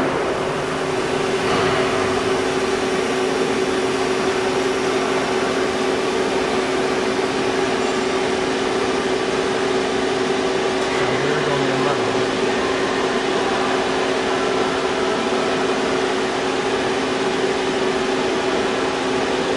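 Deep hole drilling machine running with a steady mechanical hum, two steady tones held over an even noise.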